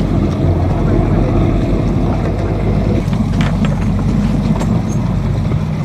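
Boat engine running steadily with a deep low rumble, with wind and water noise over it.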